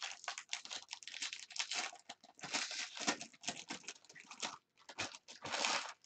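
Foil trading-card pack wrapper crinkling and tearing as it is pulled open and the cards are handled, in quick irregular crackles, with a longer stretch of crinkling near the end.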